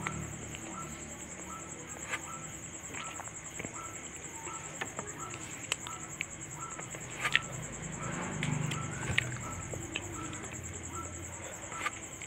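Eating rice and fish curry by hand from a steel plate: sharp clicks of fingers and rice against the metal and chewing, the loudest clicks about seven and nine seconds in. Behind it a steady high insect trill runs throughout, with a faint chirp repeating about every half second.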